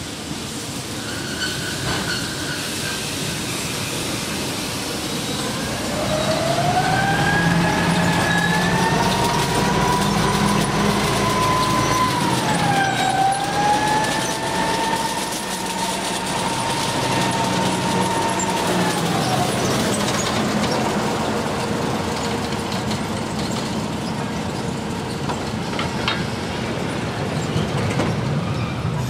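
Diesel-hauled passenger train rolling slowly past and coming to a stop, with a steady low engine hum and rail noise. For about thirteen seconds in the middle a long high squeal rises in pitch, holds, dips briefly and fades, from the wheels as the train brakes.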